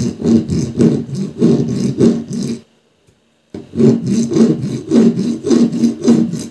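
Flat hand file rasping back and forth across a sprayer battery's solder-coated negative terminal, about three quick strokes a second, in two runs with a pause of about a second between them.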